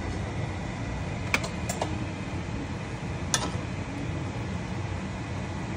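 Water boiling hard in a stainless steel pan, a steady rumble, with a few short clicks of a utensil knocking against the pan about a second and a half in and again near the middle.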